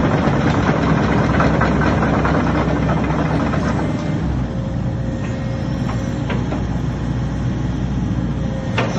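Hitachi ZX135US-6 excavator's diesel engine running, louder and busier for the first four seconds, then settling to a lower, steadier note with a faint thin whine. A few short clanks come through over it.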